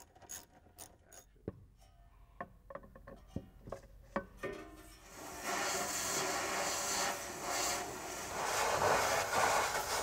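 Scattered light metal clicks and knocks of hand tools working on the transmission and driveshaft under a car. About halfway through, a steady loud hiss starts: an oxy-fuel torch cutting the old exhaust pipe.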